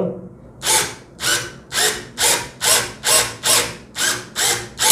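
Cordless drill driving an automatic rivet gun adapter, setting a pop rivet through two steel plates. It runs in about ten short, even bursts, roughly two a second.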